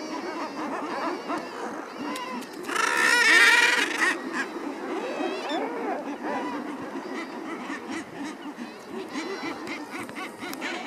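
Common guillemot colony calling: many overlapping low calls from a dense crowd of birds, with one louder, higher call about three seconds in.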